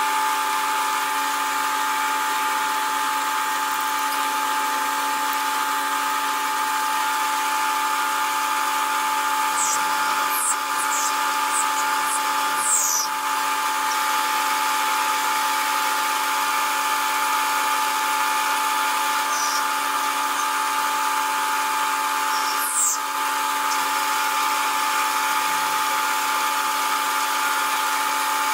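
Small benchtop metal lathe running with a steady motor whine while turning brass stock. A few brief high squeaks come about ten to thirteen seconds in and again around twenty-three seconds.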